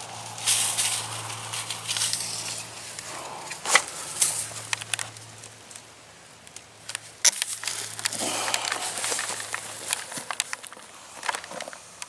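Irregular rustling and crunching with scattered sharp clicks and taps, from hands-on work with wire at a fence, with a faint low steady hum underneath.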